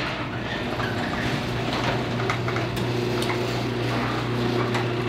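Sectional garage door rolling open on its opener: a steady motor hum with rattling and clicks from the door panels and rollers in the tracks.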